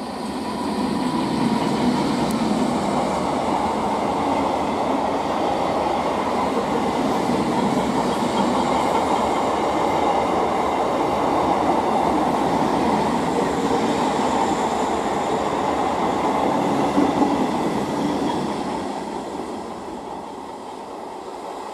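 Electric multiple unit (EMU) local train running past at speed: a loud steady rumble of wheels on rail that swells about a second in and fades away over the last few seconds.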